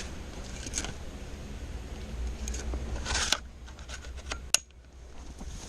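A few sharp metallic clicks and rattles over a steady low rumble. The sharpest click comes about four and a half seconds in.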